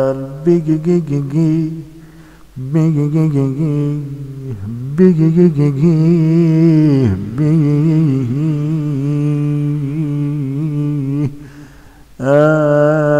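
A man's voice singing an Arabic devotional chant alone, without instruments, in long, wavering held notes with vocal ornaments. There are three short pauses: about two, five and eleven seconds in.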